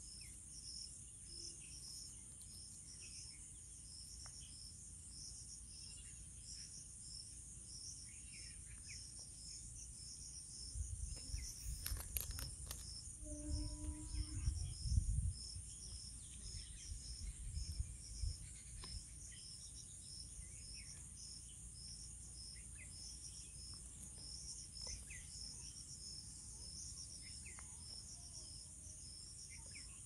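Outdoor insect chorus, cricket-like: a steady high-pitched buzz with regular, evenly spaced chirps a few times a second. A low rumble on the microphone, with a few clicks, rises for several seconds near the middle.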